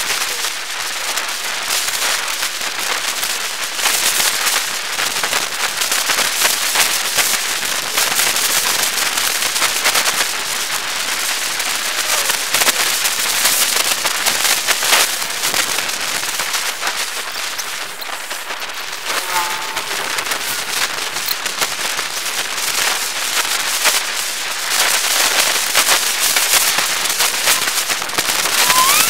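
Steady dense crackling and rattling from a bicycle-mounted camera jolting over the road surface while riding, mixed with wind rush on the microphone.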